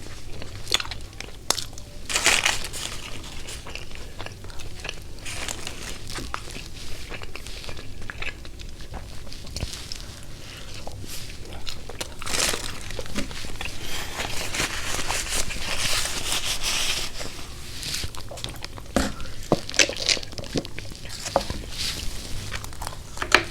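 Eating sounds: irregular crunchy bites and chewing of crisp food, mixed with the crinkling of paper wrappers.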